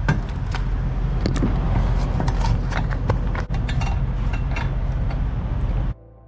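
Metal clicks and clanks of a semi-trailer's rear door lock-rod latch being worked and a padlock being fitted to it, many short irregular knocks over a steady low machine hum. The sound cuts off abruptly near the end.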